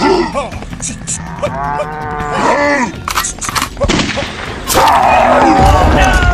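Sound effects of a buffalo bellowing: one long bellow, then a louder, rougher one near the end, with a few sharp gunshot cracks between them.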